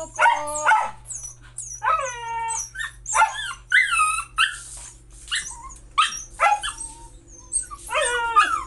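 Husky puppy whining and yipping again and again in short pitched calls that bend up and down, a hungry dog begging for its food.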